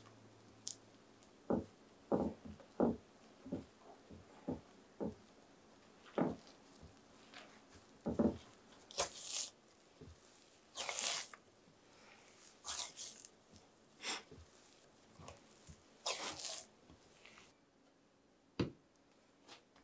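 Hands mixing flour with mashed steamed pumpkin and kneading it into bread dough in a glass bowl: irregular soft knocks and dull bumps at first, then from about eight seconds in, longer rasping, scraping strokes as the dough is pressed and worked against the bowl.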